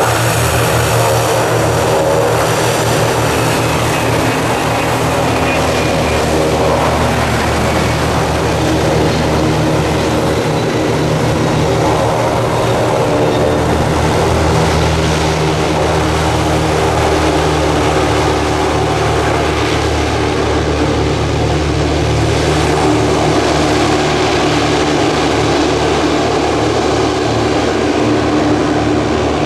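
A passenger hovercraft's twin ducted air propellers and engines running loud and steady as the craft moves on its skirt across a concrete apron. The pitch shifts a little in the first half, then holds steady.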